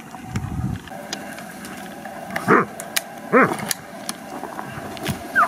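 Hunting dog barking twice, each bark a short call rising and falling in pitch, during a wild boar drive, with a few faint sharp clicks around it.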